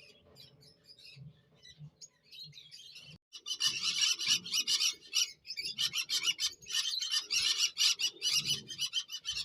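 Parrots chattering: a few faint chirps at first, then a dense stream of rapid, high squawks and chirps from about three seconds in.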